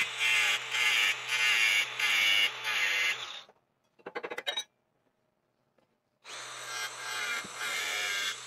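DeWalt cordless angle grinder cutting metal at the bushing of a bearing carrier, its sound surging as the disc bites. It stops about three and a half seconds in, a quick run of sharp taps follows, and the grinder starts again about six seconds in.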